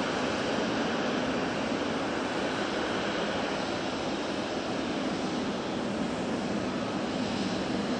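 Boeing 777-300ER's twin GE90-115B turbofans running at taxi power as the jet rolls past: a steady, even rushing noise.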